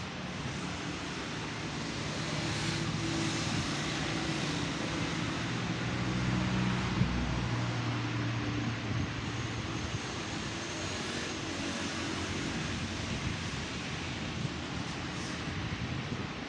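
A vehicle engine running steadily, its low hum growing louder for a few seconds around the middle and then easing back.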